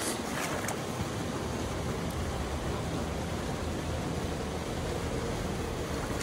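Steady rushing of flowing river water, with a few faint rustles in the first second.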